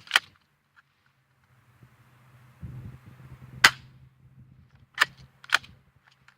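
Crosman PSM45 spring BB pistol snapping sharply as it is worked and fired. There are five snaps: a quick pair at the start, one about three and a half seconds in, and a pair about five seconds in. The pistol is malfunctioning, which the owner puts down to something wrong with its spring.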